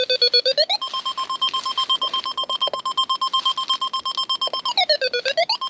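Metal detector's audio signal: a rapidly pulsing tone, about ten pulses a second, that dips and rises in pitch, holds at one steady pitch for about four seconds, then dips and rises again as the coil sweeps over shallow iron scrap.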